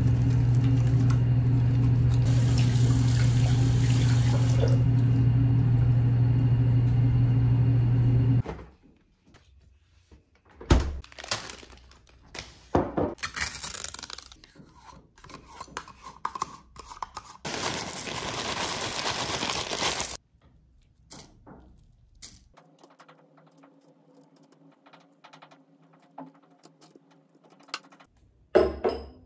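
A steady low hum with tap water running at a bathroom sink during hand and face washing, which stops abruptly about eight seconds in. It gives way to bursts of crinkling and pouring as cornflakes, yogurt and banana go into a bowl, with one sharp knock near the end.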